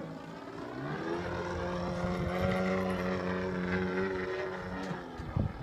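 Radio-controlled model airplane's motor and propeller droning as it flies overhead; the pitch rises about half a second in and then holds steady. A couple of brief knocks near the end.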